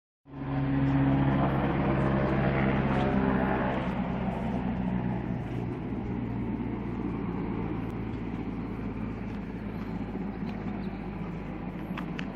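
A motor running steadily: a low hum of several steady tones over a noisy rumble, loudest for the first few seconds, then a little quieter.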